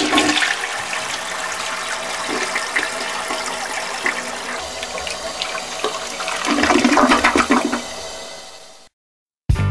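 A toilet flushing: a steady rush of water that swells louder about two-thirds of the way through, then tapers away. After a brief gap, a rock song starts right at the end.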